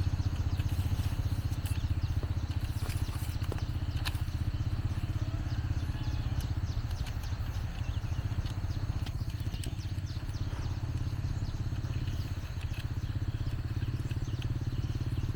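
Small petrol engine of a brush cutter running steadily at an even speed, with a fast low pulsing note and a few faint clicks over it.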